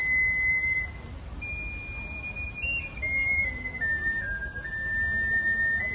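Soprano ocarina playing a slow melody of held notes with a pure, whistle-like tone. It pauses briefly about a second in, then steps downward note by note through the second half.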